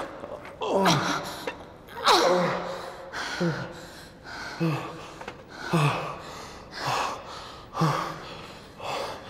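A person gasping and moaning in a steady rhythm, about once a second, each moan falling in pitch; the first two sweep down steeply from a high start.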